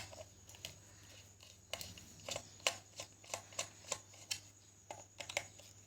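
Scattered light clicks and taps, about a dozen at irregular intervals, of small metal parts being handled as the nuts on an electrical switch board box are undone.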